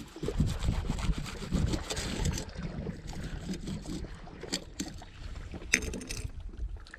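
Wind buffeting the microphone as an uneven low rumble, with a few light clicks of handling about two thirds of the way in.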